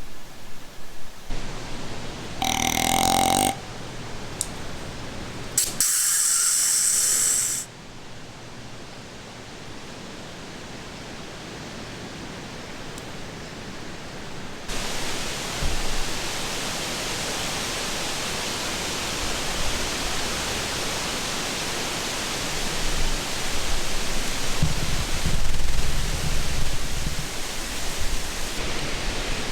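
Snort-wheeze deer call: a short snort about two and a half seconds in, then a longer hissing wheeze of almost two seconds starting about six seconds in. A steady hiss of background noise rises about halfway through and holds.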